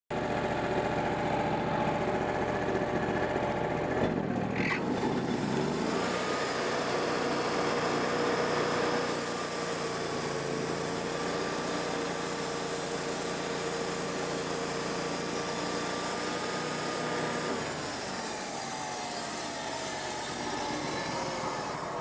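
Wood-Mizer portable band sawmill running: its engine idles, then about four seconds in there is a clunk and it revs up to drive the band blade through a red oak log, holding a steady pitch for about twelve seconds before winding down slowly over the last few seconds as the cut ends.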